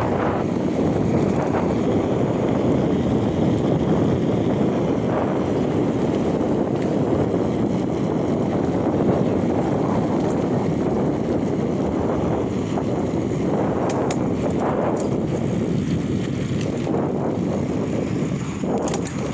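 Steady wind rush buffeting the microphone of a camera riding on a moving bicycle.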